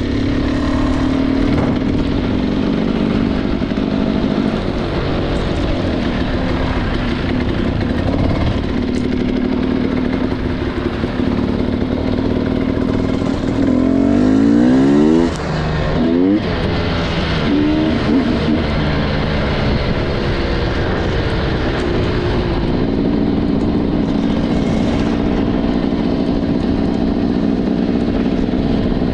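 Motorcycle engine running steadily under way. About halfway through it revs up sharply, cuts off suddenly, then picks up again in a few short rises.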